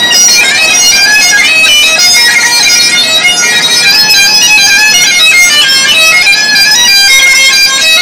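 Highland bagpipes played loudly by a street busker: a fast-moving melody over the pipes' continuous sound, with no breaks.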